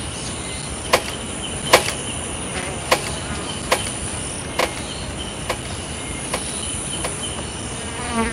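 Steady drone of insects chirping in the heat, with sharp clicks about once a second over it.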